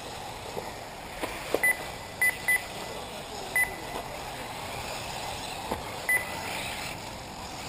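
Short, high electronic beeps from a race lap-timing system, five of them at uneven intervals (two close together about two seconds in), as RC buggies cross the timing loop. Under them runs a steady outdoor hiss, with a few faint knocks.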